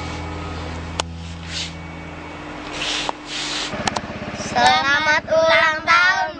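An engine runs with a fast, even pulsing, and from about halfway in, high-pitched voices call out loudly over it. A couple of sharp clicks come before.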